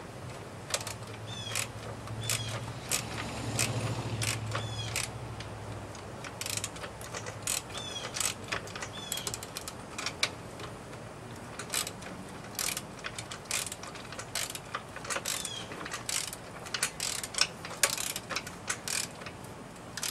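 Ratchet wrench clicking in irregular runs as it turns nuts onto bolts, the sharp clicks spread throughout.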